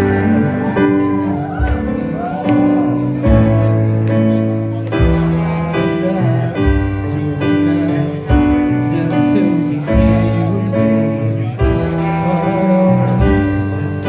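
Music: sustained chords over a bass line, changing every second or two, with a brief sung or wavering melodic line in the first couple of seconds.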